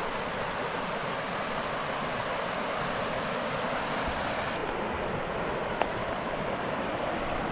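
Creek water rushing steadily, the stream running high after rain. A single faint click sounds near the end.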